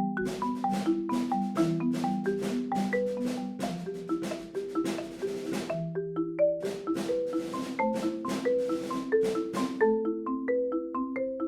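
Marimba played with mallets: a flowing passage of struck notes, several a second, mostly in the middle register, each stroke starting with a bright click that rings into a short pitched tone. The sound is raw and unprocessed, picked up by microphones beneath the bars. About ten seconds in, the strokes turn softer and duller.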